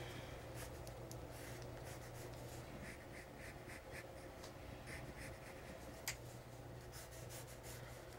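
Pencil scratching on paper in sketching strokes, with a run of short quick strokes a few seconds in and a single sharp tick about six seconds in, over a low steady hum.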